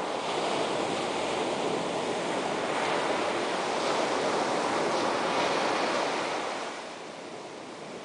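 Ocean surf: waves breaking and washing in a steady rushing noise, swelling in the middle and easing back quieter about seven seconds in.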